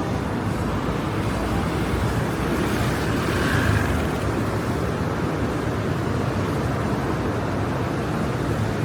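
Steady city street traffic, cars running past with a constant low rumble, swelling a little about three and a half seconds in as one passes close.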